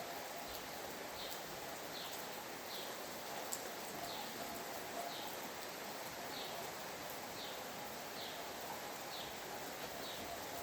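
Steady rain falling, with a bird repeating a short, high, falling note about once a second.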